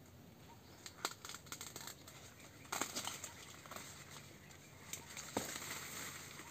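Corn leaves and husks rustling, crackling and tearing as ears of corn are picked from the stalks by hand. The noise comes in irregular bursts, busiest about three seconds in, with a sharp crack about five seconds in.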